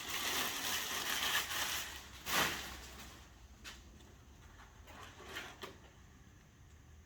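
Packaging rustling and parts being handled while a 3D printer is unpacked, with one knock about two and a half seconds in, then a few faint taps as the handling dies down.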